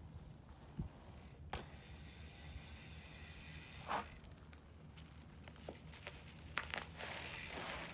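Full-suspension mountain bike being ridden: faint tyre noise on the trail with a few scattered clicks and brief swells of rolling noise.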